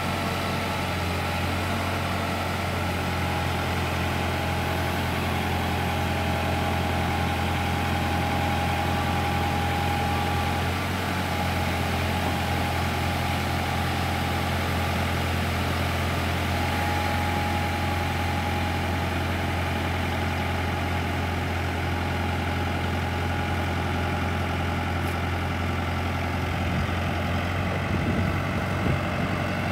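Kubota tractor's diesel engine idling steadily, with a faint steady whine above the low hum.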